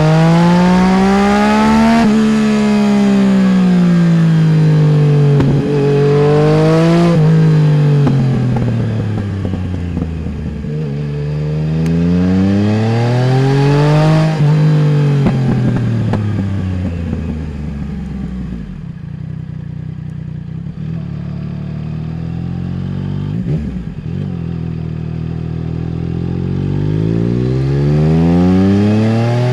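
Yamaha Tracer 900 GT's 847 cc three-cylinder engine through a full Roads Italia aftermarket exhaust, accelerating and backing off several times. The pitch rises, then falls back, over and over. It drops to a lower, quieter run about two-thirds of the way in and climbs again near the end.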